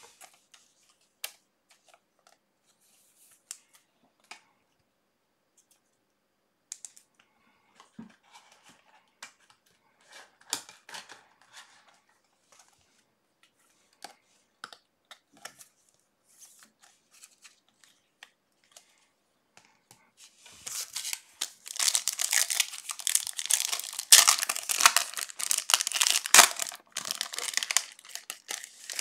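A few light clicks and taps, then about twenty seconds in a loud burst of crinkling and tearing lasting some six seconds: a trading-card pack wrapper being torn open.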